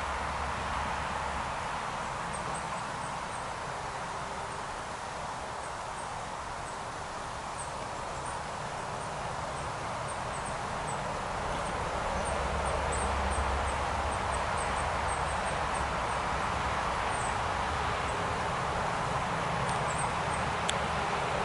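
Small woodland stream running steadily over shallow gravel riffles, with faint high bird chirps scattered throughout and a low rumble underneath.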